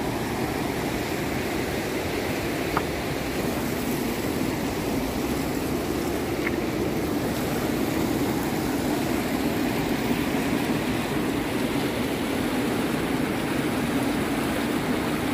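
Fast-flowing mountain stream rushing steadily, a dense, even wash of water noise.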